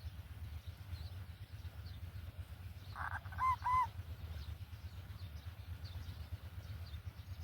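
A bird gives two short, arched, honk-like calls about three seconds in, just after a brief scratchy burst, over a steady low rumble and faint high chirps.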